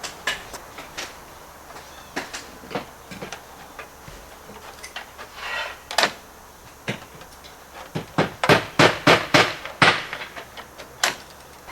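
Hammer blows on copper flashing: scattered taps and knocks, a brief scrape, then a quick run of about eight sharp strikes near the end.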